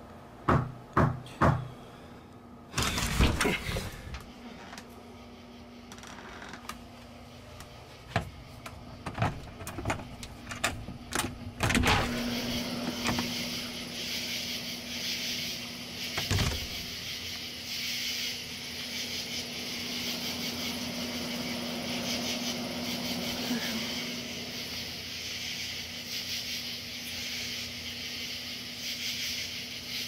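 Scattered clicks and knocks, with a louder burst about three seconds in, as a door is handled and opened. From about twelve seconds in there is a steady high hiss with a low hum underneath.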